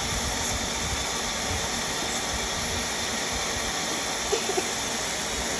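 Vacuum cleaner running steadily with a constant high whine, its suction drawn through a straw held at a toddler's nostril to pull out a lodged popcorn kernel.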